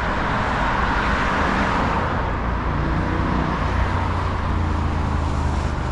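Steady road traffic: a continuous rush of tyres and engines from passing vehicles, with a heavier vehicle's low engine drone joining about halfway.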